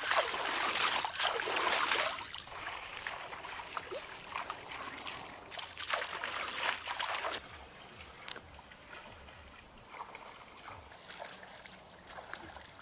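Hands splashing and sloshing in shallow stream water, loudest for the first two seconds and again for about a second and a half around the middle, with smaller trickles and drips in between and after.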